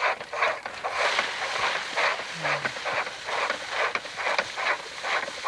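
Pedal-operated rice thresher at work: rice stalks rattling and swishing against the spinning threshing drum in an even rhythm of about two or three strokes a second.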